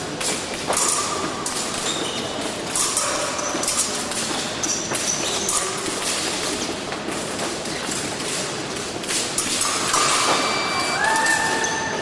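Épée fencers' feet thudding and stepping on the piste, with light clicks and short metallic rings of blade contact. Near the end a steady electronic tone sounds from the scoring apparatus as a touch registers.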